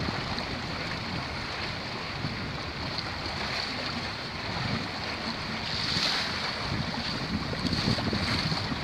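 Wind buffeting the microphone and water rushing along the hull of a Microtonner 19 sailboat under sail, a steady noisy rush with uneven low gusts.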